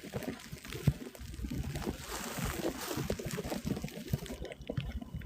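Footsteps through wet snow and slush, an irregular run of soft low thuds, with a rushing hiss through the middle that cuts off suddenly near the end.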